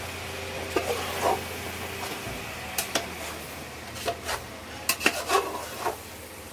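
Metal spoon scraping and clinking against the side of an aluminium pot as cooked rice is stirred, in irregular strokes about once or twice a second, over a low steady hum.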